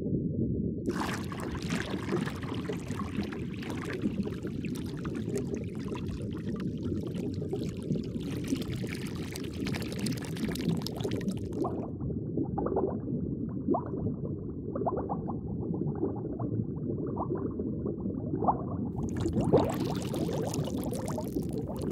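Aquarium water bubbling and trickling over a steady low rush. About halfway through, the splashy hiss thins to a muffled rush with scattered bubble pops, then it comes back brighter near the end.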